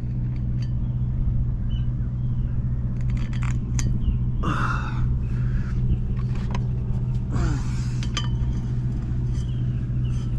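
Metal clinks and taps of a lock washer and retaining nut being fitted onto a boat's propeller shaft, over a steady low engine-like hum, with a couple of brief scraping noises.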